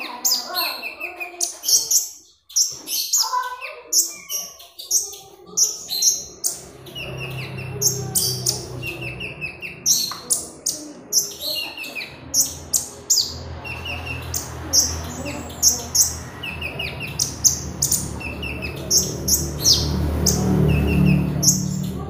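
Van Hasselt's sunbird (kolibri ninja) in full song: a rapid run of sharp, high chirps and short trills, repeated again and again. A steady low hum sits underneath from about a third of the way in.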